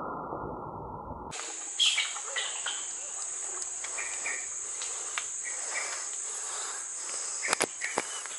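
Steady high-pitched drone of forest insects, with a few short faint chirps over it and two sharp clicks near the end. It comes in abruptly about a second in, after a muffled fading rush.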